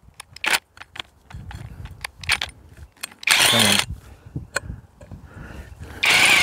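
Cordless drill run in three short bursts, each under a second, the middle one spinning down as it stops, with a series of small clicks and knocks in between.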